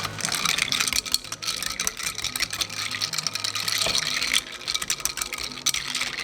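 Rapid, dense rattling and clicking of small hard objects being handled or shaken, over quiet background music.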